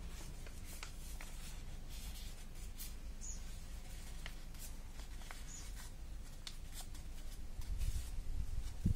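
Sheet of origami paper rustling and crackling as it is folded and creased by hand, in scattered short crinkles, with a soft thump near the end.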